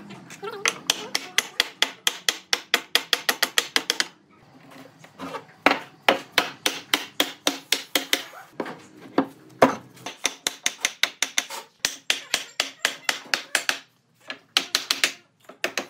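Rapid hammer blows on wood, about five or six a second, in runs of a few seconds with short pauses between them.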